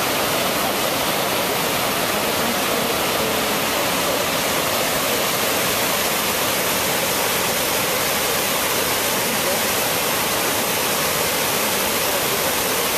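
Waterfall on a stream in flood, whitewater pouring over rock: a steady, unbroken rush of water.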